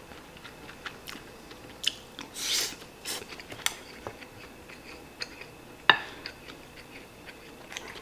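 Wooden spoon scraping and clicking against a ceramic plate while scooping fried rice: scattered short scrapes and taps, the sharpest click about six seconds in.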